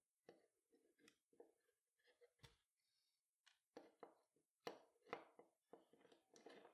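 Faint handling sounds of hand-stitching webbing: a string of soft rustles and light clicks as the thread is drawn through and the webbing, held in a metal clip, is turned over, busier in the second half.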